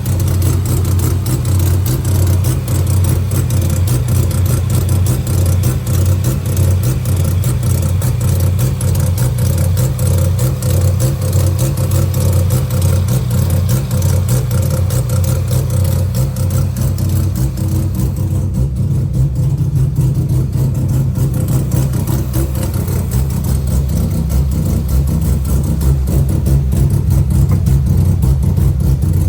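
Bridge-ported Mazda 12A two-rotor rotary engine idling unevenly and misfiring; the owner is unsure whether the cause is electrical or something else.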